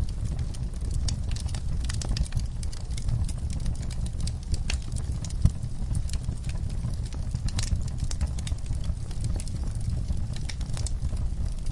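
Wood fire crackling in a fireplace: irregular sharp pops and snaps over a steady low rumble, with one louder pop about halfway through.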